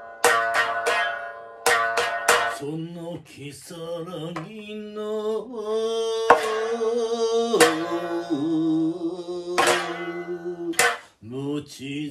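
Biwa struck hard with a large plectrum: quick groups of ringing strokes for the first couple of seconds. Then a long chanted vocal line on held, wavering notes, punctuated by single sharp biwa strokes.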